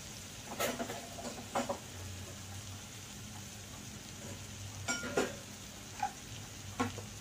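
Spinach sizzling faintly in a frying wok, broken by about six sharp clinks and knocks of kitchen utensils being handled.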